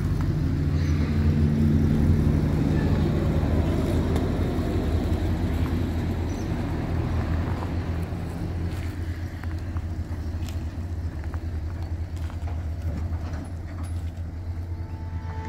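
Engine of a 1971 Ford F100 pickup running steadily with a low hum while towing a caravan. It fades slowly as the rig moves off.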